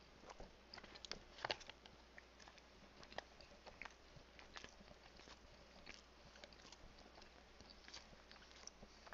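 Faint chewing of a mouthful of chicken sandwich: an irregular string of small wet mouth clicks.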